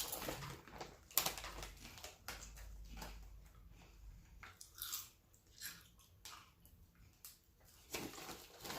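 Lay's potato chips being crunched and chewed by two people, a string of irregular crisp crunches with softer chewing between.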